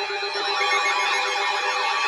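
Layered electronic warning sirens: several wailing tones sweep up and down about three times a second over a steady tone.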